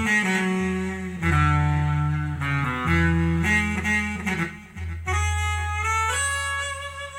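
Korg Kross2 synthesizer playing a melody in a wind-instrument-like tone, stepping through held notes over sustained low bass notes that change every second or two.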